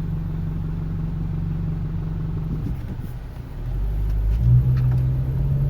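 2006 Honda CR-V idling in gear at a stop with a low, steady rattling rumble, which the owner takes for the exhaust banging against something. About three seconds in the rumble dies away and the engine note rises as the car pulls off.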